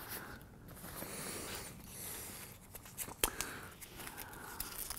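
Nylon backpack straps and pack fabric rustling as loose strap ends are handled and rolled up, with a few light clicks about three seconds in.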